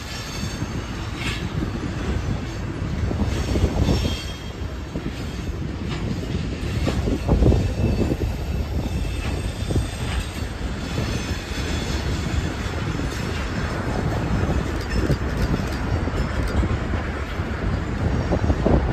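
Freight cars rolling through a rail yard, their wheels clacking over rail joints with intermittent high-pitched wheel squeal, over the steady low rumble of diesel locomotives.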